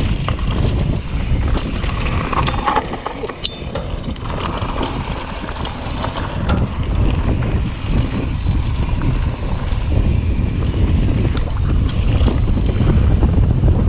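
Wind buffeting a GoPro action camera's microphone as a mountain bike rolls along a dirt trail, with a heavy low rumble throughout. Scattered sharp clicks and rattles come from the bike over rough ground.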